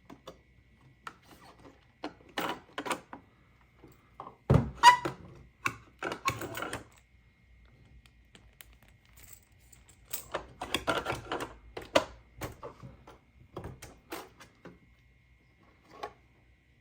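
Irregular clicks, taps and clatter of hard plastic pieces being handled, in short clusters, with a heavier thump about four and a half seconds in.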